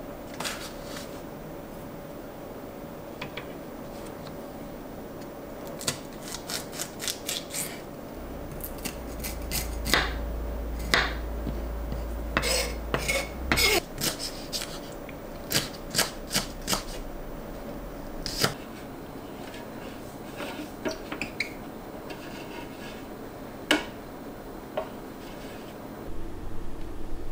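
Kitchen preparation sounds: a knife chopping green chili peppers on a wooden cutting board in runs of quick strokes, mixed with clinks of glass bowls and utensils.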